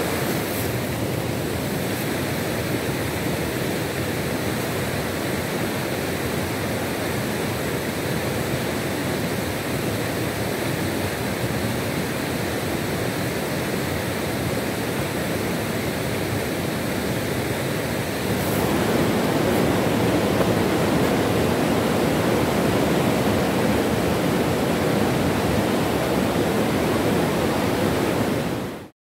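Rushing water of a whitewater river running over rocks: a steady roar with no break. About two-thirds of the way through it gets louder and fuller, and it cuts off suddenly just before the end.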